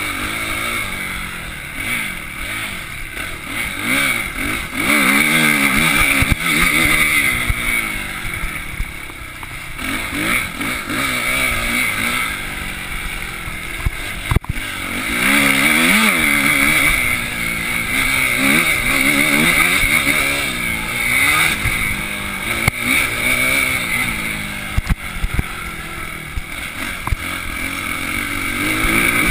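Suzuki RM-Z250 four-stroke single-cylinder motocross engine revving up and down again and again as the bike is ridden hard over a dirt track, with wind rushing over the handlebar-mounted microphone. A few sharp knocks cut through, the loudest about fourteen seconds in.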